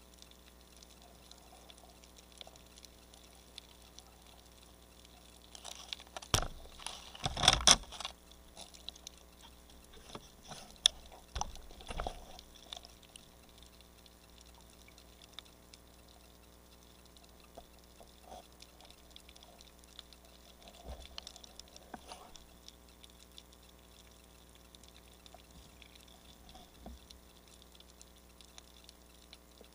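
Underwater sound picked up through a camera housing: a low steady water hiss with scattered faint ticks, broken by bursts of bubbling and gurgling water about six to eight seconds in and again around eleven to twelve seconds.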